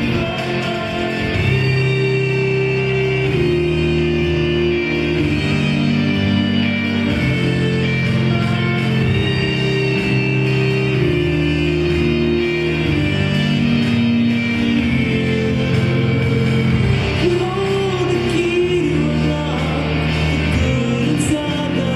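Electronic music played live: held low notes that shift every couple of seconds, with a melodic line above them.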